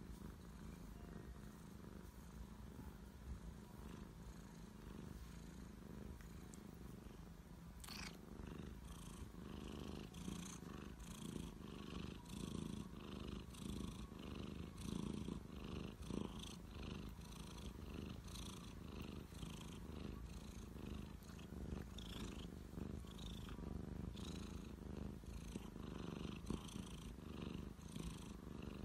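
Young orange tabby cat purring steadily and close up while it is scratched under the chin and cheek. The purr pulses evenly with its breathing, more plainly from about eight seconds in.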